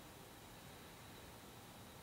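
Near silence: steady faint room tone and hiss, with a faint high steady tone.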